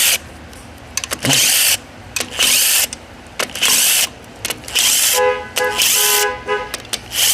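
Battery-powered impact tool run in a string of short bursts, about one a second, zipping out bolts from a CVT transmission case; the later bursts carry a steady whining tone.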